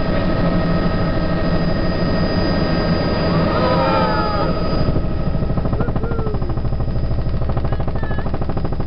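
Helicopter engine and rotor noise heard from inside the cabin in flight, loud and steady. About halfway through a fast, even pulsing from the rotor becomes more marked.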